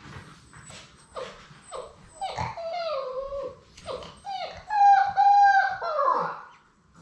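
Labrador Retriever puppy whining: a few short whimpers, then a run of high-pitched whines that grow louder about halfway in, with the longest and loudest about five seconds in, and a final falling cry.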